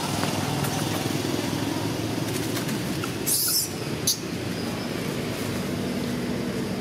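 Steady low rumble of motor traffic in the background, with a brief loud hiss about three seconds in and a short click just after.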